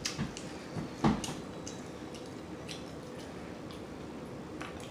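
Close-up wet mouth smacking and chewing, with scattered sharp clicks; the loudest about a second in.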